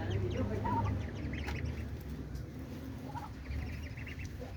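Young ducks and other farmyard fowl calling in short repeated peeps and clucks, with a low steady hum underneath.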